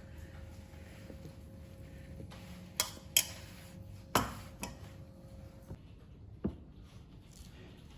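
Several sharp knocks and clinks, about five over a few seconds, the loudest a little past the middle, over a faint steady hum that stops partway through.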